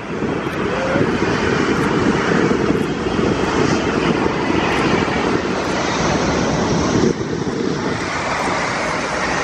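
Airbus A380 airliner landing close by, its four jet engines giving a loud, steady rumble of jet noise.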